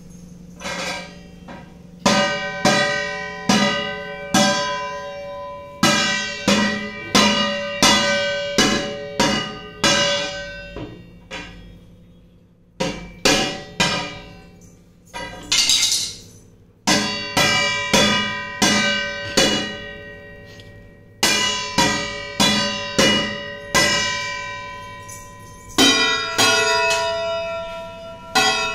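Stainless steel kitchen vessels struck over and over with a wooden spatula, each hit ringing out like a bell. The strikes come in uneven runs of about one or two a second, with brief pauses between runs.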